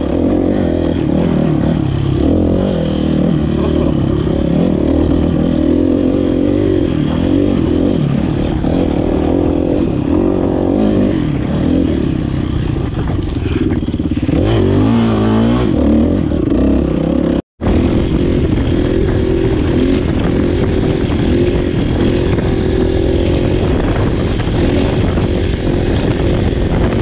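Kawasaki KX450F four-stroke single-cylinder dirt bike engine running under load on a trail ride, revs rising and falling as the throttle is worked, with clattering from the bike over rough ground. The sound drops out for a split second about two-thirds of the way through.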